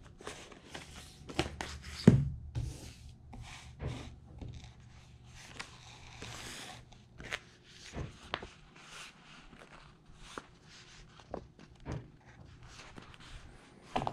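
Sheets of paper rustling and being handled, with scattered light taps and knocks on a wooden table. There is a louder knock about two seconds in.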